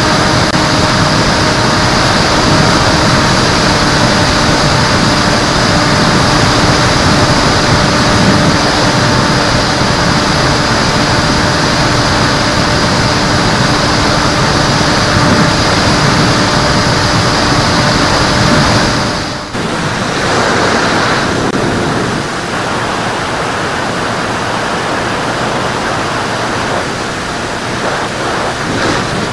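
Onboard audio from an electric FPV model airplane in flight: steady wind rush with the even hum of its motor and propeller. About two-thirds of the way through it cuts abruptly to a clip where wind noise on the microphone takes over and the motor hum is gone.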